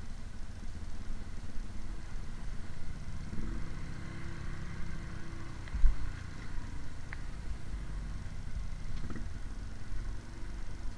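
Motorcycle engine running under a steady low rumble, with a heavy thump about six seconds in.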